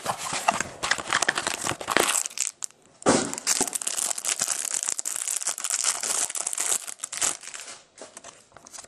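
Wrapper on a trading-card box being torn open and crumpled by hand: dense crinkling and crackling with a short pause about two and a half seconds in, dying down near the end.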